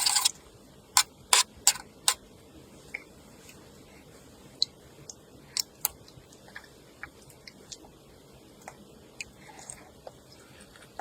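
A short scrape, then four sharp clicks or knocks in quick succession. After that, only scattered faint ticks.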